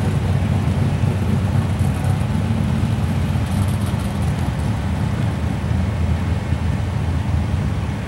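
A drag car's engine running steadily at the starting line, a loud, even low rumble with no revving.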